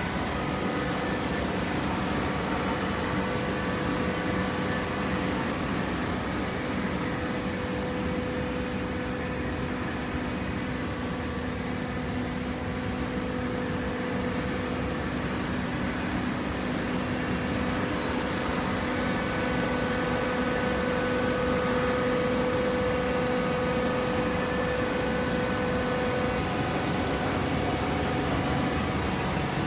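Hydraulic automatic waste paper baler running: a steady machine hum from its motor and hydraulic pump, with a steady drone that grows a little louder in the second half.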